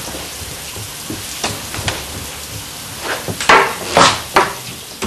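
Steady hiss of a running shower spray, with a few sharp knocks, three of them louder, in the second half.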